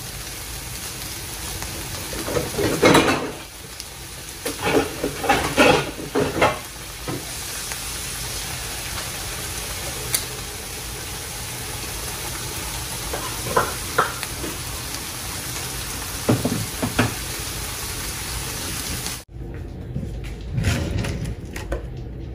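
Vegetables and mushrooms sizzling as they sauté in a pan, with several clatters of a spatula against the pan. About nineteen seconds in, the sizzle cuts off abruptly, leaving only a few low knocks.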